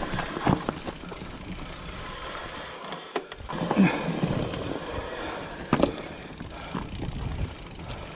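Specialized Turbo Levo electric mountain bike riding down a dirt forest trail: a steady rumble of tyres on the ground, broken by several sharp knocks and rattles from the bike hitting bumps and roots, the loudest nearly four seconds in and near six seconds.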